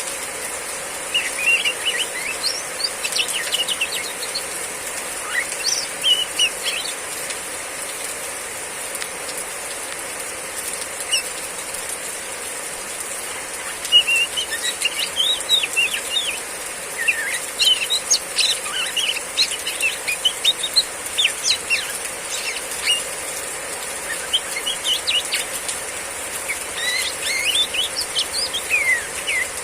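Female oriental magpie-robin giving runs of quick, high chirping calls, busier in the second half, over a steady high hiss.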